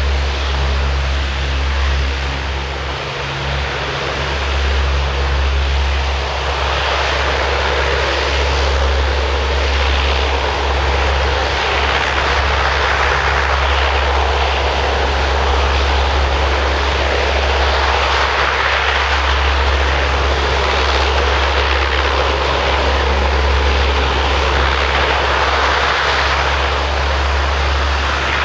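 Lockheed C-130 Hercules' four Allison T56 turboprop engines running at taxi power as the aircraft rolls slowly along the runway: a steady low propeller drone under a broad engine rush that grows louder a few seconds in.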